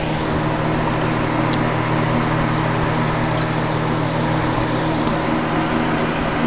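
Small submersible aquarium pump humming steadily, with a steady hiss of water and air bubbles over it and three faint ticks.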